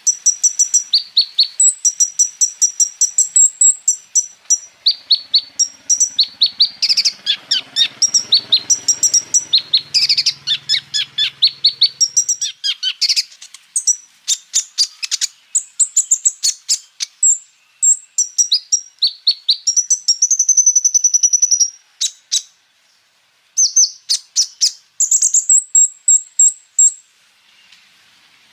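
Kolibri ninja sunbird (konin) singing a fast, high-pitched song of rapid repeated notes and trills, with a longer held trill and then a short pause about three-quarters of the way through. The phrases are the bird's rolls and rapid bursts, mixed with fill-in phrases copied from other birds.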